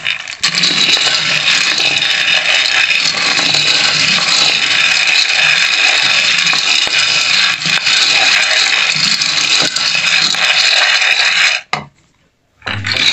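Raw peanuts being stirred with a wooden spoon in a wide aluminium pan as they dry-roast, the nuts scraping and rattling against the metal in a dense, steady rustle. The stirring stops for about a second near the end, then starts again.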